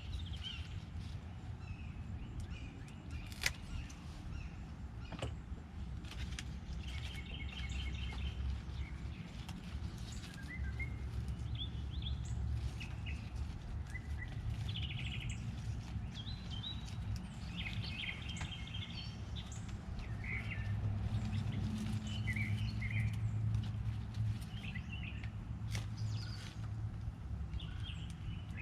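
Songbirds chirping on and off, with two rapid trills at about 8 and 18 seconds, over a steady low rumble. There is a single sharp click at about 3.5 seconds.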